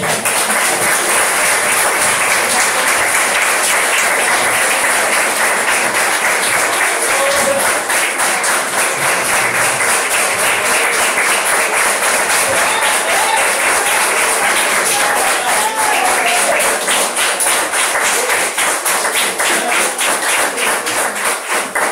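A congregation applauding: many hands clapping in a steady, sustained round, with a few voices calling out in it.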